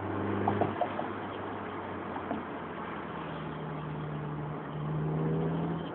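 Honda S2000's four-cylinder engine, breathing through a K&N air filter into a home-built exhaust, running steadily at moderate revs. Its pitch steps up about halfway through and a little more near the end.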